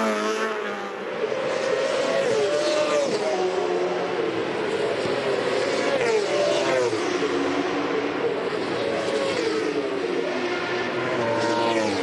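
Kawasaki endurance superbike's inline-four engine revving, pitch climbing and dropping back several times as it accelerates through the gears.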